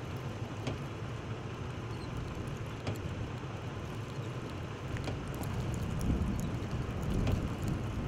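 Storm wind buffeting the microphone: a steady low rumble that turns louder and gustier in the second half.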